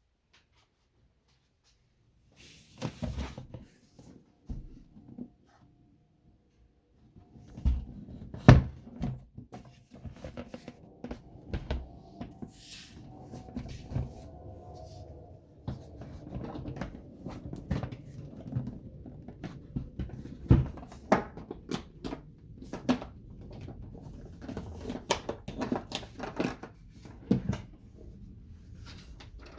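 Irregular clicks, knocks and rattles of a Hermes 2000 manual typewriter being handled, starting a couple of seconds in and going on almost without a break, with a few sharper knocks.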